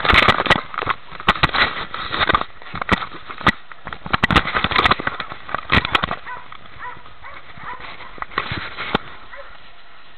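Irregular knocking, crackling and rubbing from a camera strapped to a wet dog as it moves about. The knocks come thick and fast for about six seconds, then thin out to occasional clicks.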